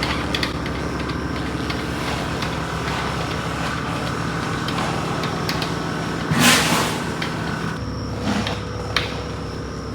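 A motor running steadily under many small rattling clicks, with a short loud rush of noise about six and a half seconds in; the steady hum drops away soon after.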